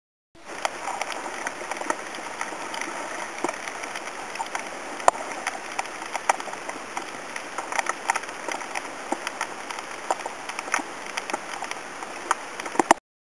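Underwater crackling hiss dense with scattered sharp clicks, picked up by a camera under water. It starts and cuts off abruptly.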